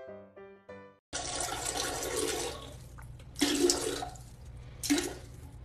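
Background music for about a second, then water sloshing and splashing in a toilet bowl as a large dog scrambles out of it, with two louder splashes.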